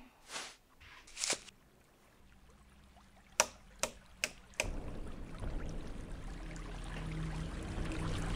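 Two soft swishes as a spoonful of powder goes into a steel bowl of flour, then four sharp clicks and a fizzing hiss of sparkling water that swells steadily toward the end.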